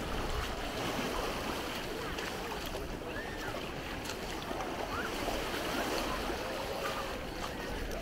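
Busy beach ambience: a crowd of distant voices and children's calls over a steady wash of wind and small waves lapping at the shore, with water splashing around wading feet.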